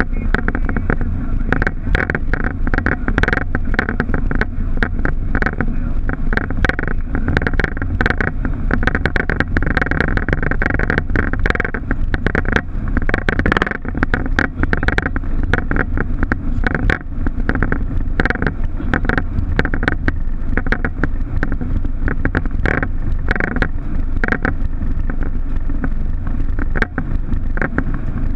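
Boeing 737 cockpit noise: a steady low rumble of engines and airframe, with frequent irregular clicks and rattles throughout.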